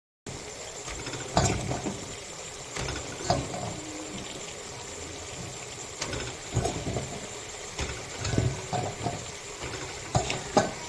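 Irregular knocks and clatter of kitchen utensils, every second or two, over a steady hiss.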